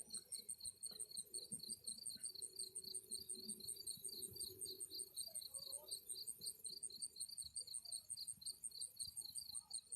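Crickets chirping in a fast, steady, high-pitched pulsing trill, faint.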